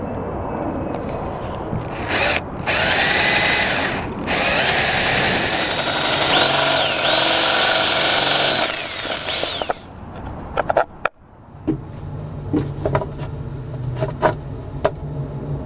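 Cordless drill boring a 3/4-inch hole through a sailboat's deck, running in spurts with its motor pitch rising and falling under load. The drilling stops near ten seconds in, and a few sharp clicks and knocks follow.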